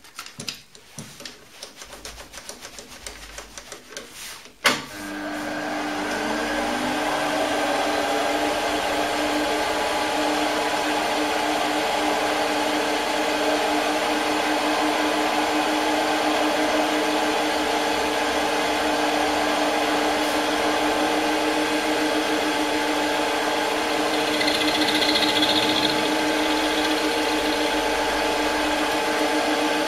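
A few handling clicks, then the Optimum D180x300 Vario mini lathe starts about five seconds in. Its spindle drive rises in pitch as it spins up over a couple of seconds, then runs steadily at a constant pitch with several steady tones.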